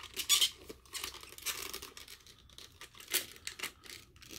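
Packaging rustling and crinkling as it is handled, in irregular short bursts, the loudest at the start and about three seconds in.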